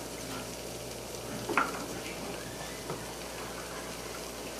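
Gravy simmering in a skillet with a faint steady sizzle while a spatula stirs and scrapes the pan, with a sharp knock about one and a half seconds in and a smaller one near the end.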